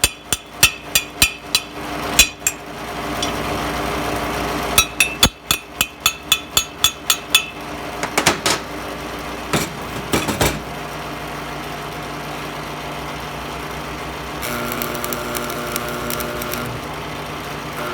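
Hammer striking metal in quick, even runs of about three to four blows a second, two runs separated by a few seconds of steady rasping noise, then a few scattered clinks and a steady hum.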